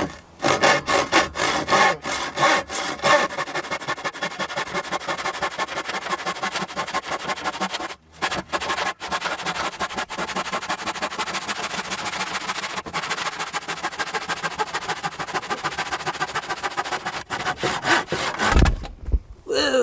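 Handsaw cutting through a plank of scrap wood by hand, in quick, even rasping strokes about four a second. The strokes break off briefly about eight seconds in, and there is a low thump near the end.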